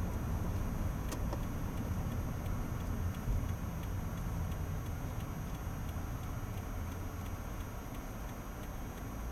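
Steady low rumble of a car's engine and tyres on a snow-covered road, heard from inside the cabin while driving slowly, with a faint regular ticking.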